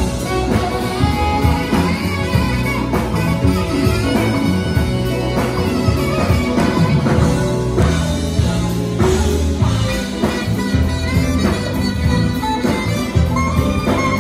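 Live jazz band playing loud, steady music with a driving beat: several saxophones over grand piano, electric guitar, keyboard, bass and drums.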